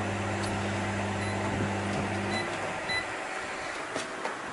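Microwave oven running with its steady hum while two CDs burn inside, with a hiss and faint clicks; the hum stops about two and a half seconds in as the oven is switched off, followed by a short beep.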